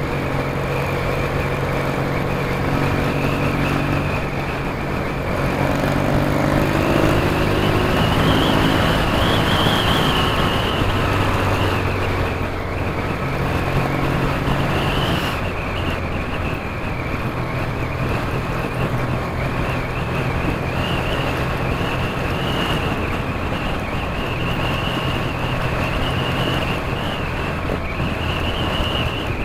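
Motorcycle engine running at road speed, heard through steady wind rush on a helmet-mounted camera. Its note rises for a few seconds about six seconds in as the bike accelerates, then settles.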